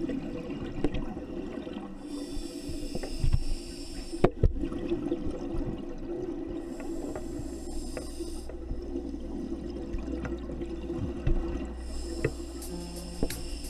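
Scuba regulator breathing underwater: a hissing inhalation about every five seconds, with bubbling, rumbling exhalations and a few sharp clicks in between.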